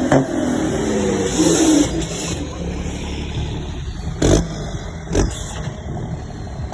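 Iveco truck's diesel engine rumbling loudly. Its pitch glides through the first two seconds, then it settles into a steady low rumble broken by two short thumps, about four and five seconds in.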